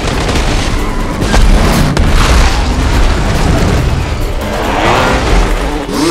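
Action-film sound mix: score music over heavy booms and crashes, with an explosion.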